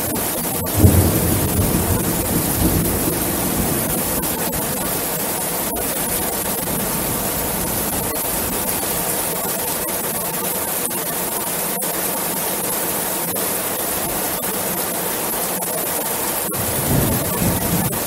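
Heavy rain falling steadily on an aluminium roof. A loud thunderclap comes about a second in and rumbles away over a few seconds, and a second, softer rumble of thunder swells near the end.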